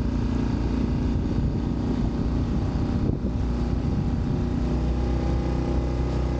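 Small motorboat's engine running steadily at cruising speed, a constant drone with no change in pace.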